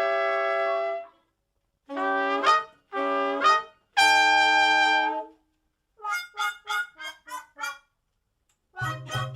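Solo trumpet music: a held note that stops about a second in, two short notes that each scoop upward, a longer held note, then a run of quick short notes, with a low note joining underneath near the end.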